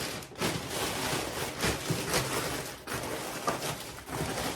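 Plastic packaging rustling and crinkling as items are handled, with a few short crackles.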